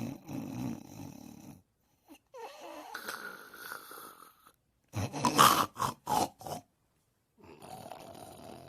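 Snoring in several short takes, cut apart by dead-silent gaps; the loudest take, a little past the middle, is a quick run of short, sharp snores.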